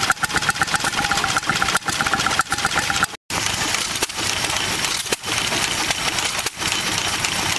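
Vintage single-cylinder stationary engine running with a fast, regular beat. After a cut about three seconds in, a stationary engine drives a drag saw through a log, a noisier sound with a stroke every second or so.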